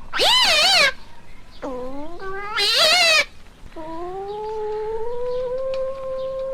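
Asian palm civet calling: a short wavering call, then a longer rising call ending in a loud warble, then one long steady call starting about four seconds in.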